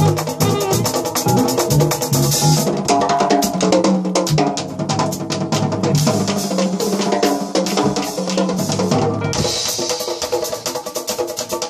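Live jazz band with candombe tambores (chico, repique and piano drums) playing a dense, driving rhythm over drum kit and piano. A cymbal wash swells near the end.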